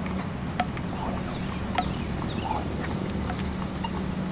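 Aerial tram car's carriage rolling along the steel track rope past a tower: a steady low hum with short squeaks, and two sharp clicks, about half a second and nearly two seconds in.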